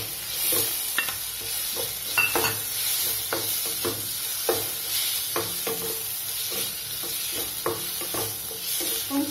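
Wooden spatula scraping and knocking against a metal kadai in repeated strokes as freshly added chopped tomatoes and onions are stirred, over a steady sizzle of the vegetables frying in oil.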